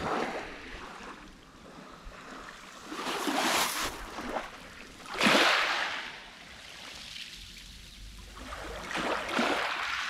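Small waves from a calm sea lapping and washing over a pebble beach. There are about four swells, the loudest about five seconds in.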